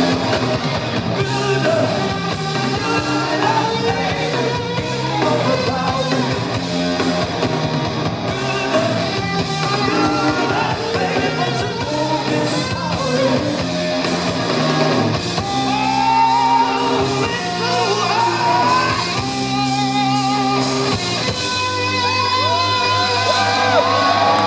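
Rock band playing live: electric guitar, bass and drums driving on, with wordless wailing vocals. From about halfway through come long, wavering notes with heavy vibrato.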